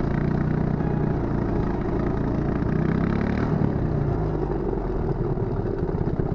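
Lawn mower engine driving a go-kart, running steadily under way; its note drops about three seconds in and then runs rougher.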